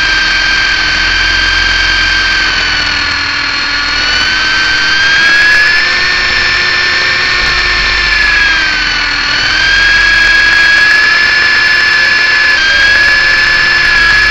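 MJX F645 RC helicopter's electric motor and rotor, heard close up from the onboard camera: a loud, steady high whine with overtones that dips in pitch twice and comes back up as the throttle changes, over a low rumble.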